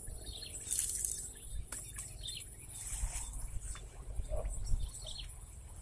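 Birds chirping in short calls over a steady high insect buzz, with a low rumble underneath.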